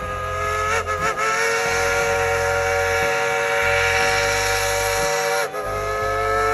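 Steam locomotive whistle blowing in long, steady blasts. It breaks twice briefly about a second in, holds for about four seconds, drops out for a moment and sounds again near the end.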